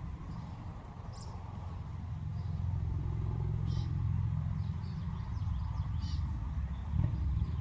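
A passing vehicle's low rumble swells and then eases, with a few short bird chirps scattered over it.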